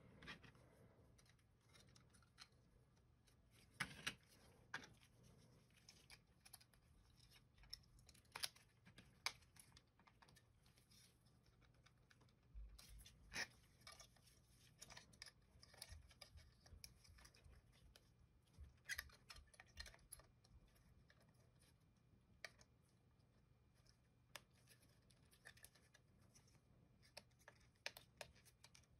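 Faint, irregular clicks and taps of the mouse's plastic housing parts being handled and pressed together in gloved hands, with a few dull bumps against the work mat.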